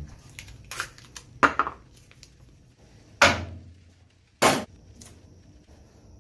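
A few sharp clacks and knocks of tools and metal being handled and set down, the loudest three spread out at about one and a half, three and four and a half seconds in.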